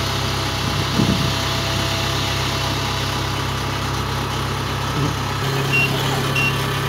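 Kubota DC-68G Harvesking crawler combine's diesel engine running steadily as the machine backs down loading ramps. Near the end a reversing alarm starts beeping, two short high beeps about half a second apart.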